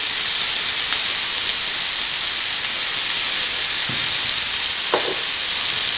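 Cluster beans and brinjal frying in oil in a kadai, a steady sizzling hiss.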